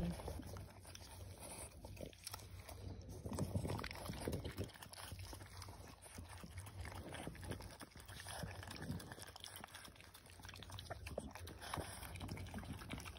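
French bulldog in labor lapping liquid from a plastic container held to her mouth: irregular, wet mouth sounds.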